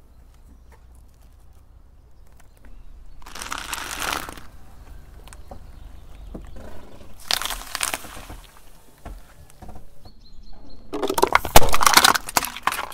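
A car tyre rolling over small brittle objects on concrete, glass marbles among them, crushing them in three bursts of crunching and cracking about four seconds apart. The last burst is the loudest.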